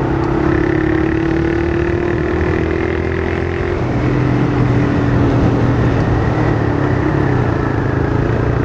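Honda CG Fan 160's single-cylinder engine running through an open 'lata' can exhaust while riding. The note climbs slowly, then drops to a lower steady note about four seconds in.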